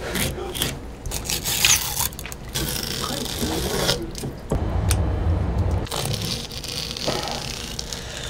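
Knife blade scraping and cutting along a freshly killed eel on a wet wooden cutting board, a series of short scrapes as the fish is filleted.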